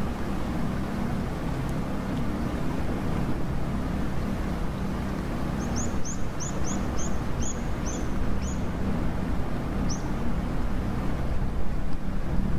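A steady low drone, with a quick run of about nine short high chirps around the middle and a single chirp a little later.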